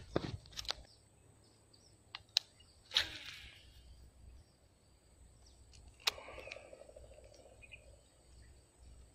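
Footsteps and rustling through long grass and weeds, with scattered sharp clicks and knocks in the first three seconds and another about six seconds in.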